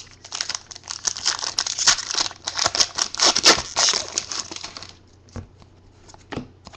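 Foil trading-card pack being torn open and its wrapper crumpled, a dense crinkling that dies down about five seconds in. A few light clicks follow as the cards are handled.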